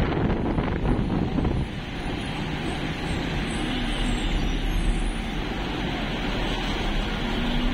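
Wind buffeting the microphone over the steady rumble of a double-decker bus driving along the road.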